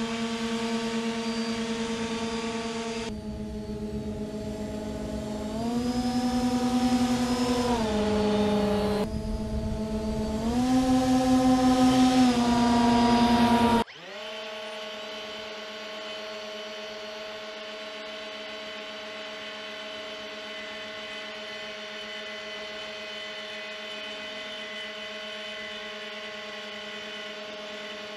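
Motors and propellers of a radio-controlled three-motor skirtless model hovercraft humming, the pitch stepping up and down several times as the throttle changes. About halfway through the sound cuts to a quieter, steady hum picked up on board the craft.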